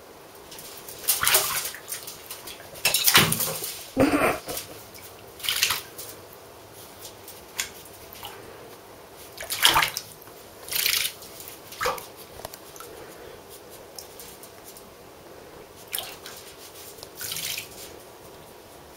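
Angora ferret paddling in shallow bathwater in a bathtub, making irregular splashes, about ten short ones with quieter moments between.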